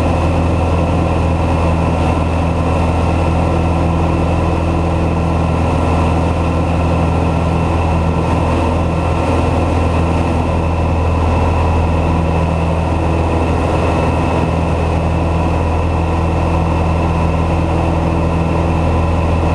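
A Citabria 7ECA's 118 hp Lycoming O-235 four-cylinder engine and propeller running steadily in level flight, a constant loud drone with a deep, even hum.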